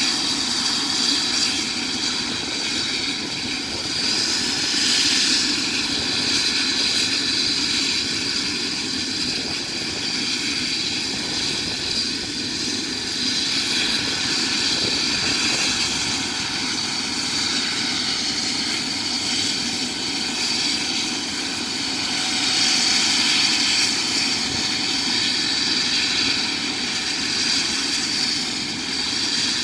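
Devon Air Ambulance helicopter's turbine engine running with the aircraft on the ground before lift-off: a steady high whine made of several held tones over a lower hum, swelling a little a few times.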